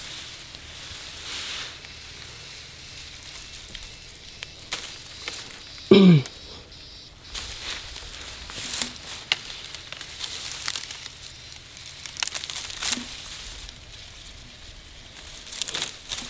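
Rustling, tearing and crinkling of cut grass and leaves being handled, with scattered irregular crackles. About six seconds in, one brief loud sound drops sharply in pitch.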